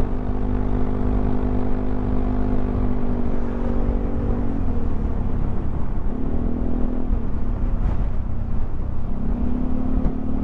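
Yamaha XMAX 300 scooter's single-cylinder engine running under way, with a steady low wind rumble on the microphone. The engine note holds steady, drops about four and a half seconds in, then rises briefly twice as the throttle is opened again.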